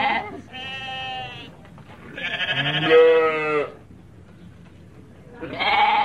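Sheep bleating several times: the end of one bleat, a quieter, higher bleat about half a second in, a long, loud, wavering bleat around the middle, and another bleat starting near the end.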